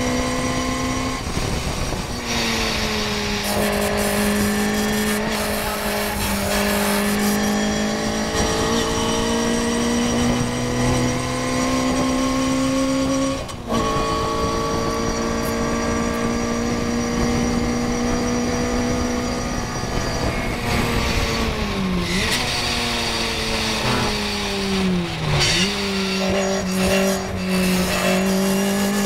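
Small-engined Morgan race car's engine heard from the cockpit at high revs, the pitch held fairly steady along the straights with a short break about halfway. Near the end it dips sharply and recovers twice as the car brakes hard and shifts down for a corner, with wind noise throughout.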